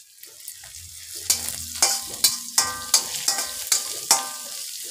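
A metal spatula stirring and scraping seeds and chopped green chilli frying in hot oil in a metal kadhai, with sizzling. From about a second in, the spatula strikes the pan with ringing clinks two or three times a second.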